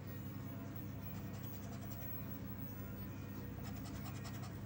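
Faint scraping of a scratch-off lottery ticket's coating in short strokes, over a steady low hum; the strokes come thicker near the end.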